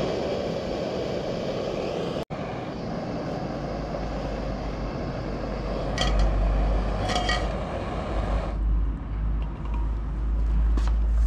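Steady outdoor roar of wind on the microphone mixed with road or traffic noise. A deep rumble grows heavier after a few seconds, and a couple of short sharp knocks come about halfway through.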